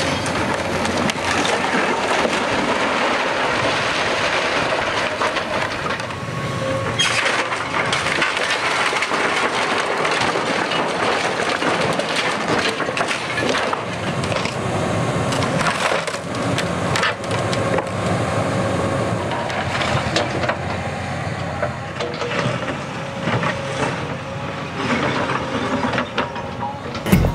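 Excavator demolition grab tearing apart a timber-framed house: wood cracking and splintering, and brick and masonry rubble breaking and clattering, in a dense run of cracks and knocks. The machine's engine runs steadily underneath.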